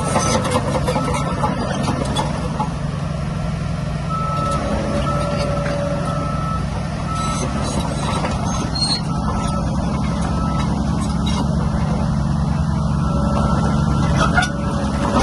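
Heavy diesel engine of earthmoving equipment running steadily under load, with a reversing alarm beeping about once a second and occasional metallic clanks.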